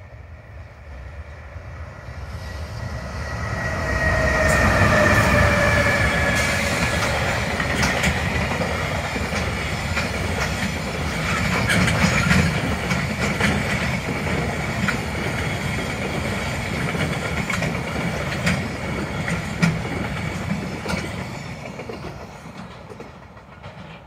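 JR Freight EH500 electric locomotive hauling a container train passing close by. The sound builds over the first few seconds, and a high tone slides down in pitch as the locomotive goes by. Then come the steady rumble and clickety-clack of the container wagons' wheels over the rail joints, with sharp clicks, fading near the end.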